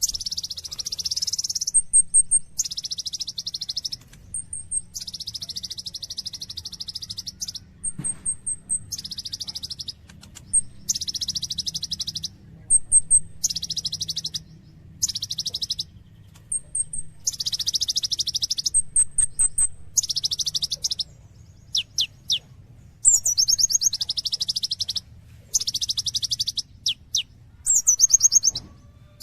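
Brown-throated sunbird (kolibri ninja) singing energetically. It gives long buzzy, rattling trills in quick succession, broken by short high chips and a few sharp downward-swept notes.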